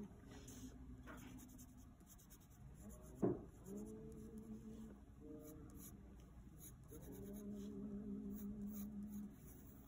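Pencil scratching on paper in shading strokes, with a sharp tap about three seconds in. A low droning tone comes and goes alongside, strongest near the end.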